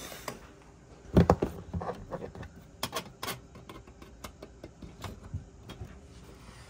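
A run of irregular knocks and clicks, loudest about a second in and thinning out after about six seconds.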